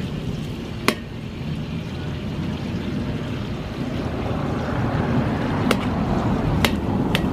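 Metal spoon scraping and clinking against a large steel disco pan while breaking up cooked stingray, with sharp clinks about a second in and three more near the end. A steady low rumble runs underneath.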